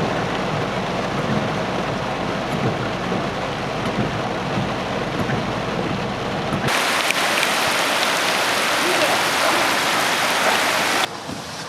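Heavy rain pouring down in a steady hiss. About two-thirds of the way in, the sound switches abruptly to a louder, harsher downpour. That cuts off again just before the end.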